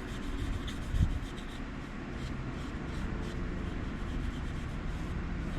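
Light rubbing strokes on a folding knife, wiping off gun-blue residue, with a single low thud about a second in.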